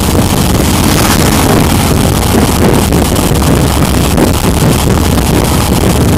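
A motorcycle running at steady road speed, its engine buried under heavy wind rushing over the microphone.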